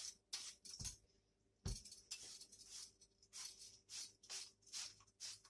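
Vegetable peeler scraping the skin off a raw potato in short, quick strokes, roughly one every half second, faint. Two soft low thuds come about a second in and again shortly after.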